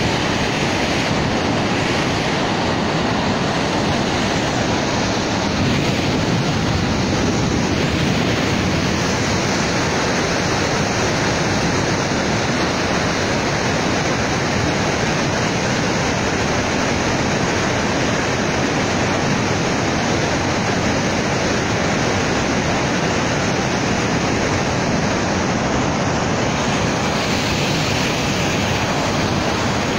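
Floodwater pouring through a dam's open spillway gates and churning in the river below: a loud, steady rush of water with no letup.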